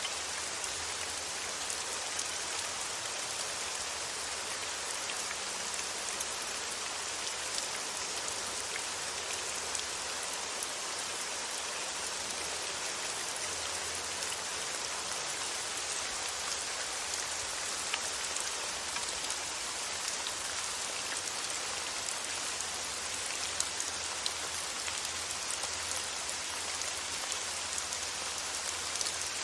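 Steady rain falling on a surface, an even hiss with scattered individual drop ticks, as a continuous rain-sound recording.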